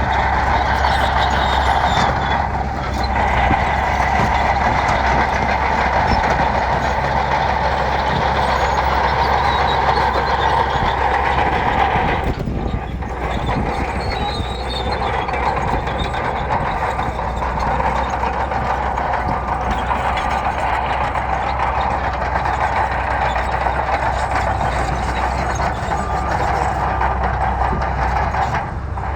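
Heavy bulldozer's diesel engine running steadily while working gravel: a constant low drone under loud, even machine noise, dipping briefly three times.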